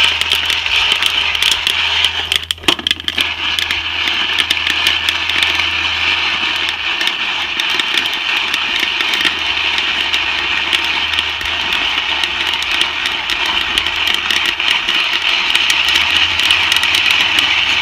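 Coffee beans cracking during first crack in a Whirley Pop popcorn popper used as a roaster, with many small sharp pops and crackles coming steadily. Under them is a steady hiss and a low hum.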